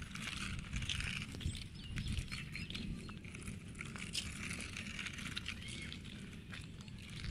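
Small remote-control toy jeep driving over loose gravel: its plastic wheels crackle and tick on the stones, over a steady low rumble.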